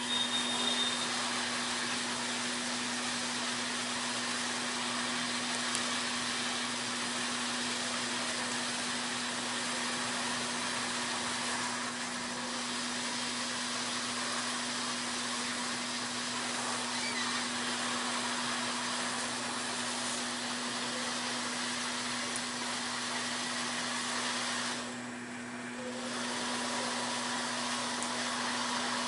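Hot air rework station blowing a steady hiss of hot air with a steady low hum underneath, reflowing solder paste to seat a four-sided chip's legs on a motherboard. The hiss dips briefly about 25 seconds in.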